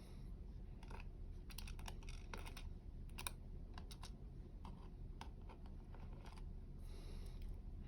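Light, irregular clicks and taps of small metal parts as lock pins and tools are handled during the disassembly of a dimple lock.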